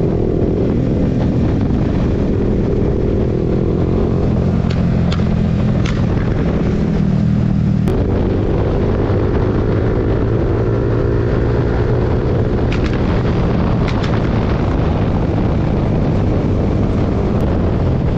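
Motorcycle engine under hard acceleration while riding. The revs climb through a gear, drop at a gear change about eight seconds in, then climb again. A few sharp cracks sound over the engine note.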